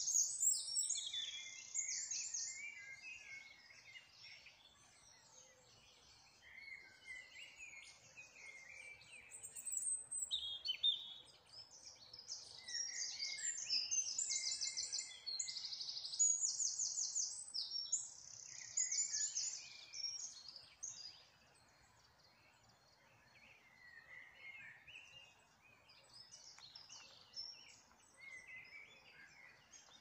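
Several songbirds singing at once, overlapping high chirps and rapid trilled phrases. It is busiest at the start and through the middle, with sparser song between.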